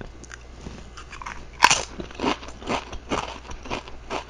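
Karamucho potato chips bitten with one sharp crunch about a second and a half in, then chewed with a steady crunching about twice a second.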